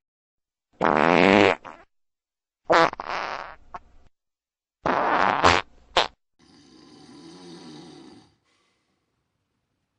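A sleeping man farting: three loud farts of about a second each, then a longer, fainter one that dies away.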